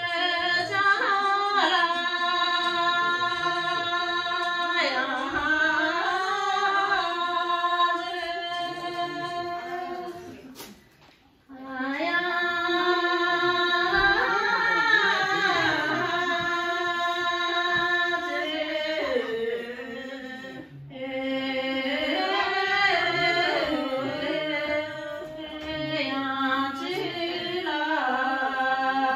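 One voice singing a slow, drawn-out melody in long held and gliding notes, in three long phrases with short breaths between them.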